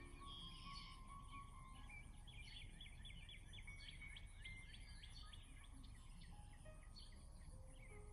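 Faint chirping of small birds, many quick short calls that are busiest in the middle, over a steady low background rumble.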